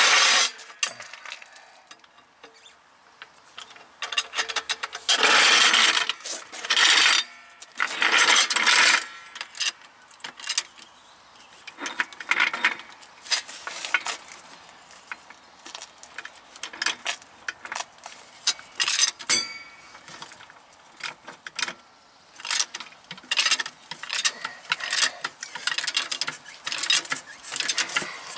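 Rusty hydraulic floor jack being pushed into place under a car on asphalt and set up to lift it. There are two long stretches of scraping and rattling in the first ten seconds, then irregular metal clicks and clanks as the jack and its handle are worked.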